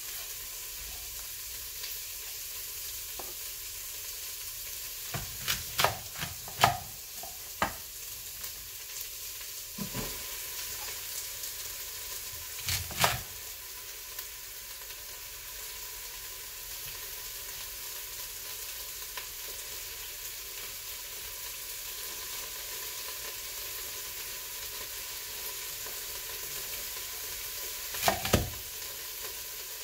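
Chef's knife chopping celery on a wooden cutting board: a quick run of sharp knocks, then single chops spaced apart, and a pair near the end. Under them runs a steady hiss of steam venting from an Instant Pot pressure cooker.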